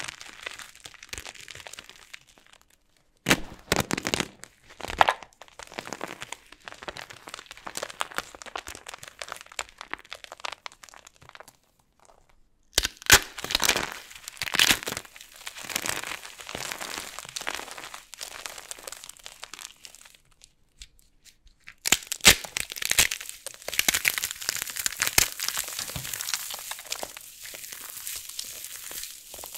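Dry soap boxes packed with starch cracking and crunching as they are broken. The sound comes in three bouts with short pauses between, each opening with sharp cracks and running on as dense crackling.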